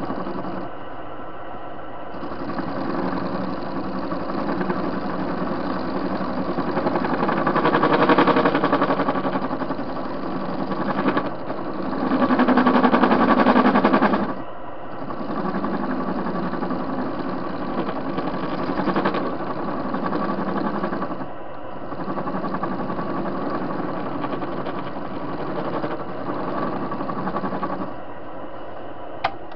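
A TV-16 lathe running with its chuck spinning while the cutter takes passes across the face of a metal washer. The steady machine noise swells during two louder stretches, about eight and about thirteen seconds in, and eases off near the end.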